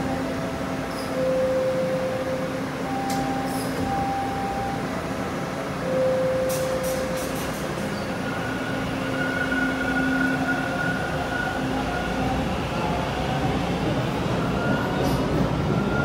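TTC T1 subway train humming at the platform, then pulling out of the station. Its motor whine rises in pitch as it accelerates and gets a little louder toward the end.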